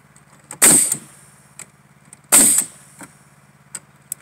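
Pneumatic framing nailer firing twice into pine boards, about a second and a half apart: each shot is a sharp bang followed by a short hiss of exhaust air.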